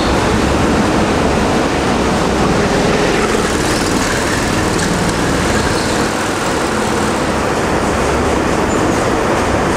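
Go-karts running on an indoor track: a loud, steady drone, with one kart passing close by about four seconds in.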